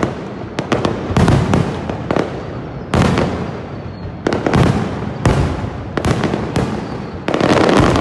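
Fireworks display: loud aerial shells bursting one after another at irregular intervals, some in quick clusters. Each bang is followed by a rolling echo.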